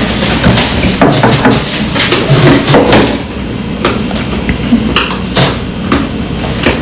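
Irregular knocks and clatter of objects being handled and set down on a tabletop, busiest in the first few seconds.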